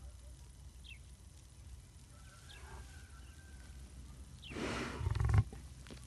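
Lion sneezing: a rush of breath builds about four and a half seconds in and ends in one sharp, loud blast that cuts off suddenly.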